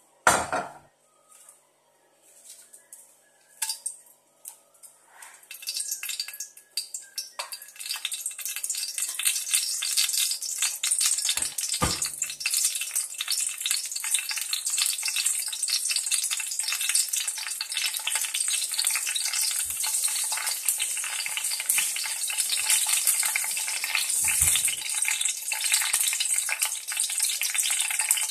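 Hot oil in a stainless steel kadai crackling, building after a few seconds into a steady sizzle as dried red chillies fry in it. A clunk on the pan at the start and two dull knocks later.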